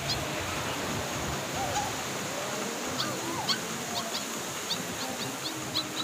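Outdoor ambience: birds calling, with short sharp chirps repeating every half second or so and a few lower wavering calls, over a steady hiss of background noise.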